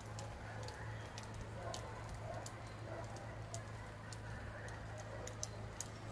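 Charcoal fire under skewered meat in a wire grill basket crackling, with scattered sharp pops a few times a second over a steady low hum.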